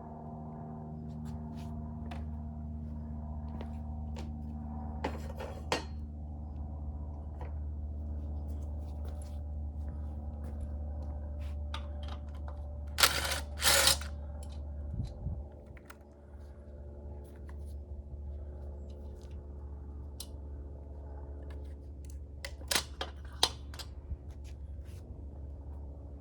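Hand tools and metal parts clicking and clinking as a motorcycle is taken apart, over a steady low hum. A few scattered clicks, with two louder short scraping clatters about halfway through and a couple more clicks near the end.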